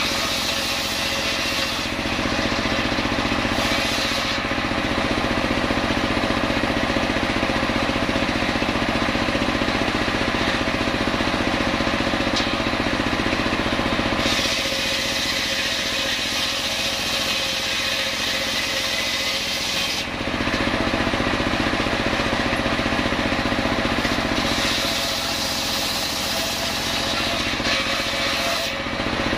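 Engine-driven homemade circular saw bench running steadily. Its blade rips lengthwise through coconut wood three times: in the first few seconds, from about 14 to 20 seconds in, and again near the end. Each cut adds a harsh, high hiss over the engine's drone.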